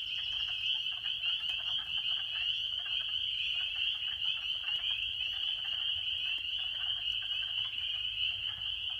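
Dense chorus of spring peepers: many high, short peeps overlapping into a continuous shrill din. Beneath it are lower, duck-like chuckling calls of wood frogs. These are the males' spring mating calls.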